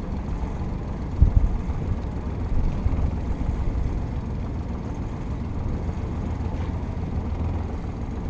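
Steady low rumble aboard a sailing yacht under way, with a brief louder gust about a second in.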